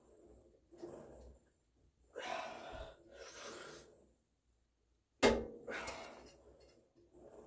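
Hard breaths in time with cable tricep pushdown reps on a Marcy MWM-990 home gym. A sharp metallic clank from the weight stack comes a little past halfway.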